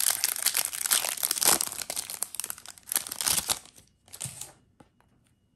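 Foil wrapper of a Yu-Gi-Oh booster pack being torn open and crinkled by hand, a dense rustling for about three and a half seconds, then a short rustle just after four seconds.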